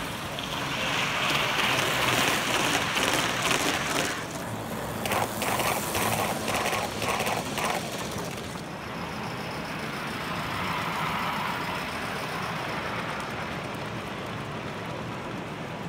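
Gauge 1 model trains running on the layout track: a steady noisy rumble of wheels on rails, with a run of quick, regular clicks, about two to three a second, from roughly a third of the way in to halfway.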